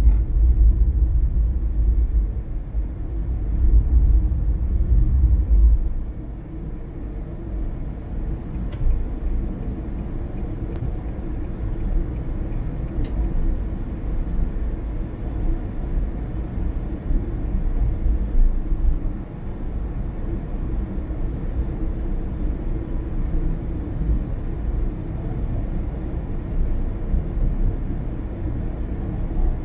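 Car driving along a road: a steady low rumble of engine and tyre noise, louder for the first six seconds or so, then settling lower and even. Two faint clicks about 9 and 13 seconds in.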